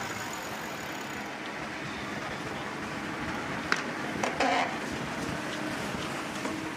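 Steady rush of wind and water around a racing catamaran sailing at speed, with a sharp click a little past halfway.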